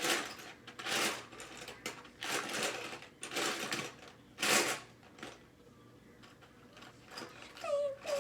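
Small plastic Lego pieces clattering and rattling under a hand, in short bursts about a second apart.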